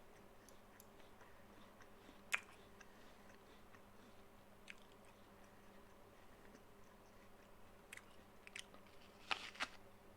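A person biting and chewing a crisp apple: a sharp crunch about two seconds in, faint chewing clicks after it, and a cluster of crunches near the end.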